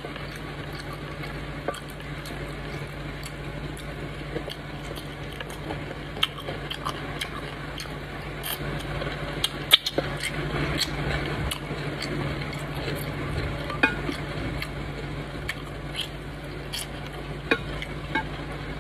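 Fingers scooping soup from a glass bowl and eating by hand: wet squelching, with small clicks of fingers and nails against the glass and a sharper knock about ten seconds in. A steady low hum runs underneath.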